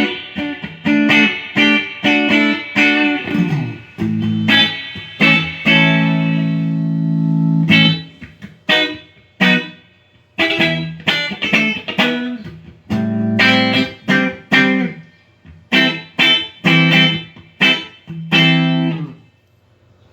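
Electric guitar played through a Fender Champion 30 amplifier, being sound-tested after repair of its broken potentiometers: picked notes and strummed chords, with one chord left ringing for about two seconds near the middle. The playing stops shortly before the end.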